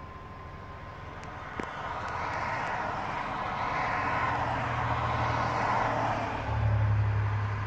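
Mercedes Sprinter van's common-rail diesel idling at about 680 rpm, heard from inside the cab. A single click comes about a second and a half in, then a rushing noise swells, and a deeper hum gets louder near the end.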